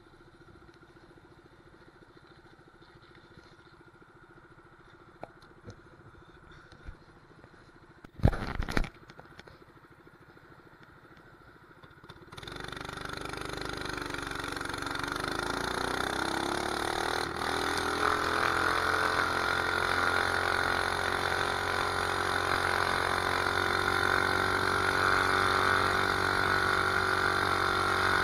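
A mini bike's 212cc single-cylinder four-stroke engine with an aftermarket pipe, running quietly at low speed at first, with a brief loud knock about eight seconds in. About twelve seconds in the throttle opens: the engine note climbs in pitch as the bike accelerates, then holds loud and steady at riding speed, with wind noise on the microphone.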